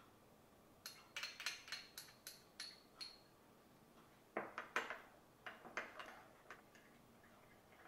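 Metal spoon clinking against a small glass bowl while stirring lotion: two runs of quick taps, the first with a short glassy ring.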